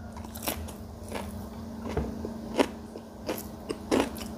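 Close-up chewing of a mouthful of fermented fish wrapped with raw chili and garlic, with a sharp crunch every half second to a second.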